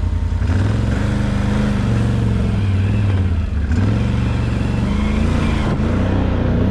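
ATV engine running under way, its pitch rising and falling as the throttle opens and closes.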